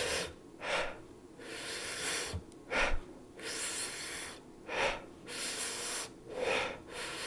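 A man imitating vesicular breath sounds with his own breathing: a long soft breath followed by a shorter, sharper one, about four times, each inspiration drawn out longer than the expiration, with brief breaks between the breaths instead of a continuous flow.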